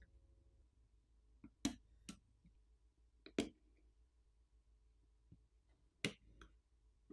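Faint, scattered clicks and taps of small metal repair tools against a smartphone's internal parts and screws, about four sharper clicks among a few softer ones.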